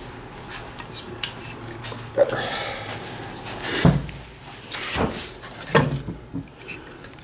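Hands and tools working around the engine's wiring harness and connectors: several sharp knocks, clicks and small metal clatters, the loudest a dull thump about four seconds in.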